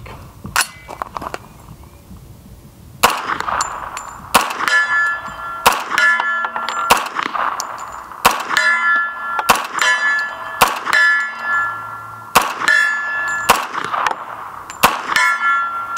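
CMMG Guard .45 ACP carbine firing a string of semi-automatic shots, several in quick pairs, starting about three seconds in. Each shot is followed by the ringing clang of a steel plate target being hit.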